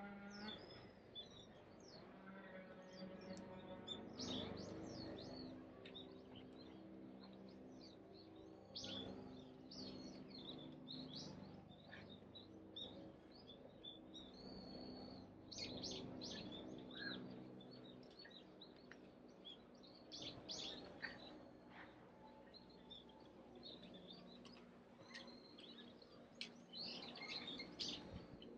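Small birds chirping and twittering, many short, high calls scattered throughout, heard faintly over a low steady hum.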